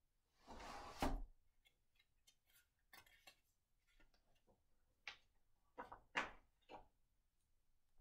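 Sheets of music being handled on a music stand: brief paper rustles and small taps and clicks, with a sharper click about a second in and a cluster of rustles later on.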